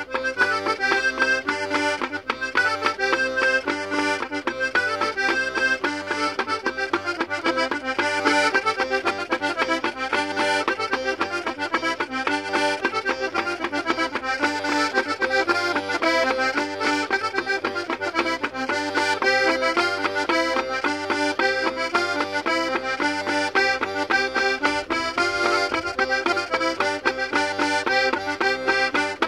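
Diatonic button accordion (mızıka) playing a traditional folk dance tune: a fast run of melody notes over a regular bass-and-chord pattern from the left-hand buttons.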